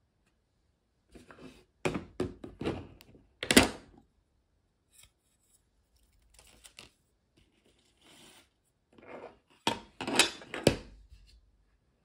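Clear plastic magnetic one-touch card holders being handled on a table: sharp hard-plastic clicks and clacks as the case halves are picked up and set down, in two bursts, about two seconds in and again near the end, with faint sliding and scraping between them.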